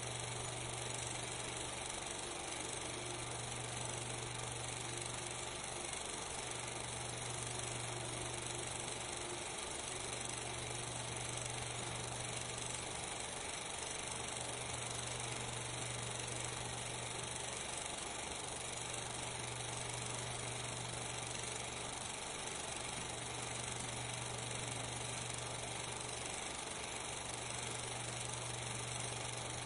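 Steady hiss with a low hum underneath, holding level with no distinct events. This is the background noise of a film soundtrack with no recorded sound.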